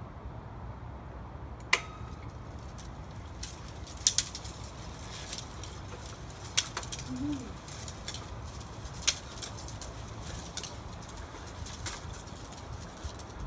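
The metal leg linkages of a Theo Jansen-style walking chair click and clank irregularly as it walks slowly forward, with a sharp click every second or two and a double clank about four seconds in, over a low steady rumble.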